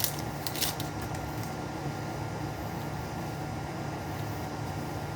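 Steady low background hum of room noise, with a few brief rustles and clicks of trading cards being handled in the first second and a half.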